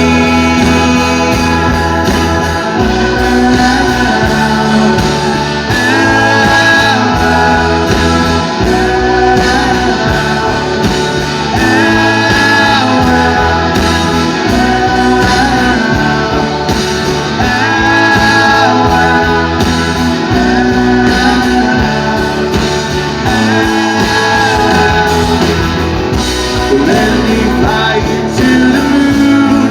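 Live rock band performing, with a male lead vocal singing over electric guitars and a steady, stepping bass line, recorded loud from the front row.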